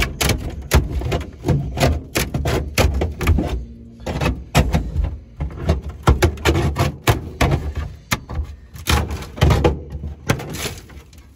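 A screwdriver prying and scraping under a thin galvanized steel sheet on a rusted car floor. The loose sheet metal clanks and rattles in quick, irregular clicks as it is worked up, with a brief pause about four seconds in.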